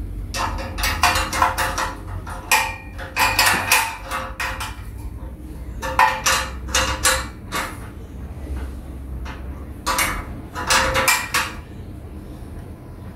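Metal clinking and rattling of a hand tool working a nut at the wheel hub of a cast-iron treadle sewing machine stand. It comes in four short bursts of quick clicks with a slight metallic ring.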